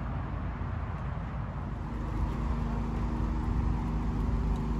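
A car engine idling steadily, which comes in about two seconds in, over a low background rumble.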